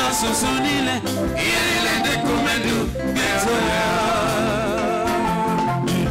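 Live Nigerian gospel band music: drums keep a steady beat under sustained, wavering melodic lines.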